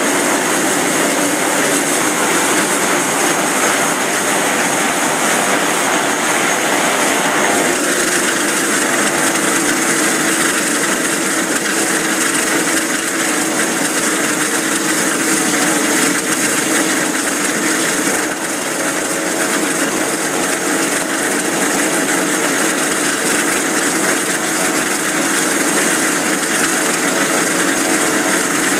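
Piper PA-46-500TP Meridian's single turboprop engine running at low power, a steady whine over propeller noise. Its tone shifts slightly about eight seconds in.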